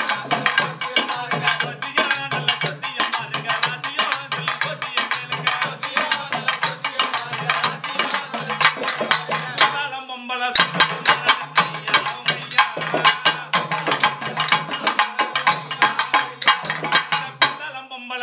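Folk drum ensemble playing a fast, driving rhythm: dense, rapid hand-drum strokes over a low beat about twice a second. The drumming breaks off briefly about ten seconds in and again near the end, when a wavering tone comes through.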